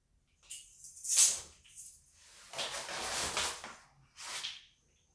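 Scraping and rustling as a rubber timing belt and a long metal ruler are handled and slid over a tile floor: several short noisy scrapes, the loudest about a second in, and a longer one lasting about a second in the middle.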